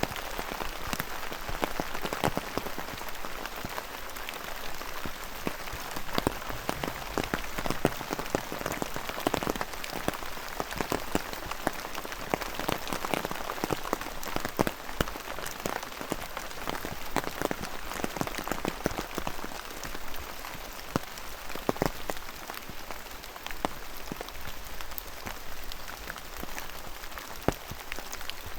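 Rain falling steadily: a constant hiss with many separate drops landing in irregular, sharp ticks.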